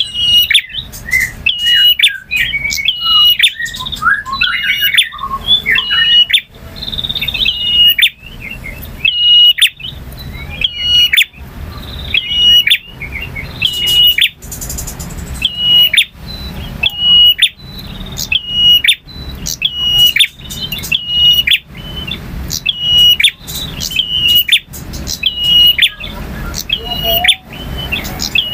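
Male prinia (prenjak) singing: a sharp, high note repeated about once a second, with sharp clicking strokes between, and a varied warbling phrase in the first few seconds.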